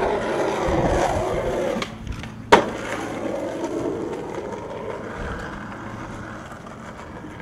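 Skateboard wheels rolling over rough asphalt. The rolling drops out briefly, then there is one sharp clack as the board comes back down about two and a half seconds in, and the rolling carries on and fades.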